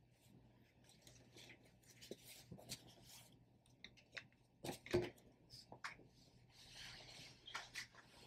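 Faint rustling and small clicks of fabric being handled and folded, with one sharper click about five seconds in and a brief faint hiss near the end.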